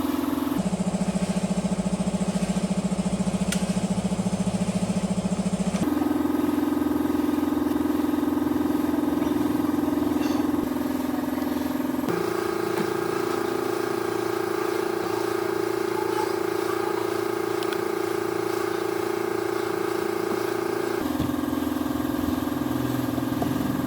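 A power tool's electric motor running steadily with a strong hum. It jumps abruptly to a different steady pitch about half a second in, about six seconds in, about twelve seconds in, and near the end.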